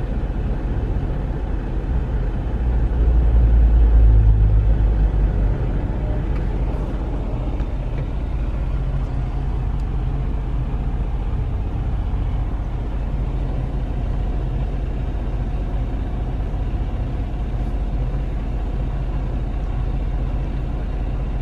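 Steady low rumble of a semi-truck's diesel engine idling, heard inside the cab. The rumble swells louder for a couple of seconds about three seconds in, then settles back.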